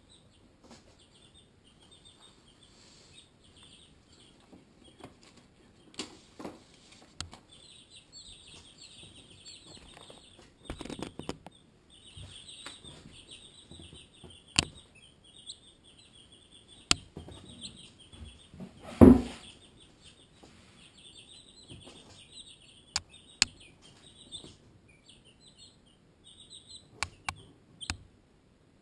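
A brood of young Barred Rock and Ameraucana chicks peeping with quick, high-pitched cheeps throughout. Scattered sharp taps and a loud thump about two-thirds of the way through break in close to the microphone.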